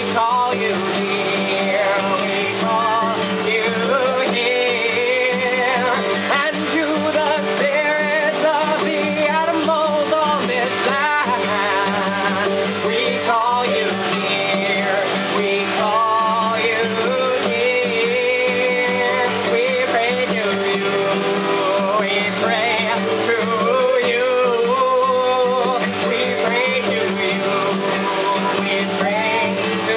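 A voice singing a wandering melody over a steady instrumental accompaniment.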